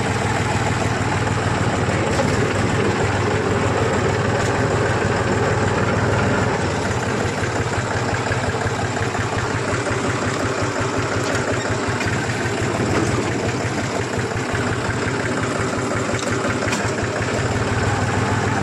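Tractor engine running steadily at low speed, heard close up from the driver's seat.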